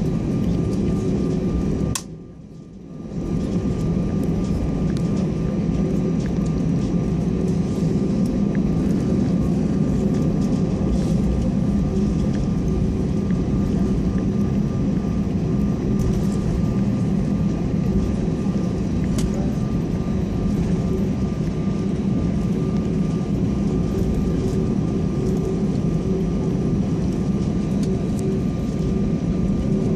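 Airbus A320 cabin noise while taxiing: the jet engines at idle give a steady low rumble and hum with a few held tones. The sound drops out briefly about two seconds in.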